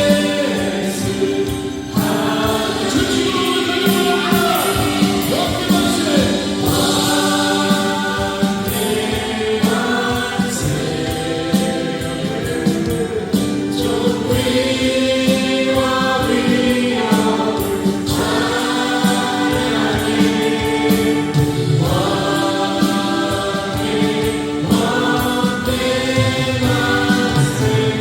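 Choir singing with instrumental accompaniment, in sustained phrases a few seconds long.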